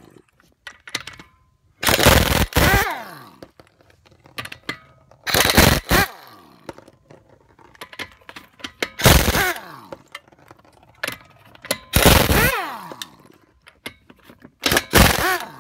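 Pneumatic impact wrench zipping off 19 mm wheel lug nuts: five short bursts about three seconds apart, each trailing off in a falling whine as the tool spins down.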